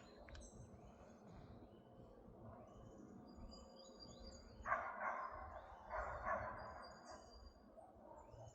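Park soundscape: small birds chirping with short high calls, and distant dogs barking, with a few louder barks about five and six seconds in.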